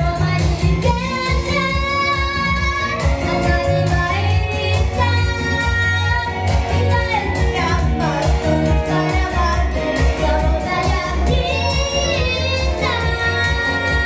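A boy singing a pop ballad into a handheld microphone over backing music with a steady bass beat, holding long notes that slide between pitches.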